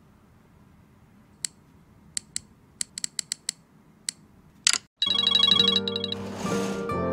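A string of sharp, separate iPhone clicks while an alarm is being set, then a short swish, and about five seconds in the iPhone alarm starts ringing its loud, repeating electronic tone.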